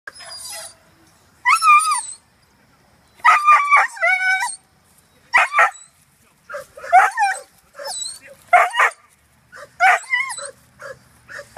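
A dog yipping and whining in high-pitched calls, repeated about once a second, some bending up and down in pitch.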